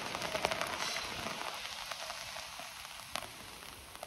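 Steady rain pattering, with scattered small clicks and one sharper click about three seconds in.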